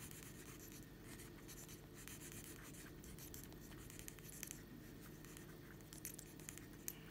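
Faint pencil scratching on paper in irregular sketching strokes, with a few sharper ticks near the end, over a steady low hum.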